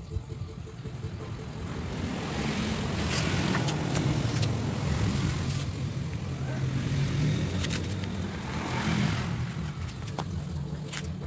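Low rumble of road traffic swelling and fading, loudest in the middle and again near the end, with a few sharp clicks.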